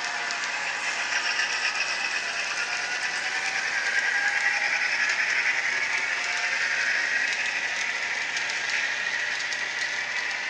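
HO scale model freight train led by a Santa Fe F7A locomotive running along the track: a steady whir of the locomotive's motor and gears, with a light rattle of the cars and scattered faint ticks from the wheels on the rails.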